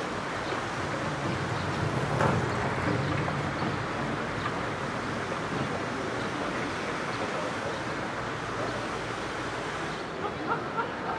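Steady rushing outdoor noise with faint distant voices in it.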